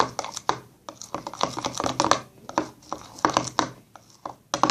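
A spoon stirring a sticky glue and shaving-foam slime mixture in a bowl, making quick, irregular clicks and scrapes.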